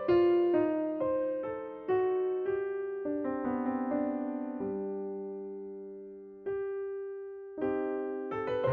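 Background piano music: slow, gentle notes and chords, each struck and left to fade, with one long chord dying away about halfway through before the playing picks up again near the end.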